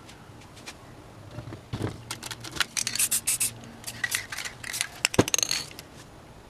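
Spray paint cans and tools handled at the painting: a close run of clicks, scrapes and short hissing sprays lasting about four seconds, with one sharp click near the end.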